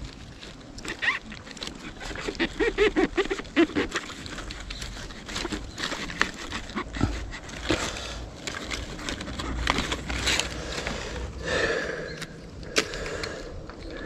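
Knife cutting clusters of wild oyster mushrooms off a rotting log: a run of irregular small snaps and scrapes as the stems are sliced and the caps handled.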